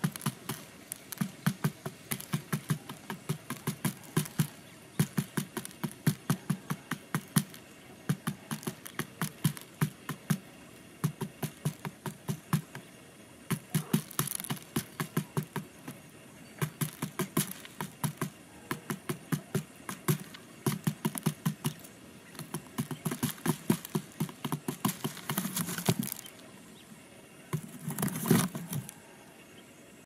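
Quails pecking rice grains off a cardboard box, rapid sharp taps of beak on card, several a second in bursts with short pauses. Near the end a louder scuffle and thump.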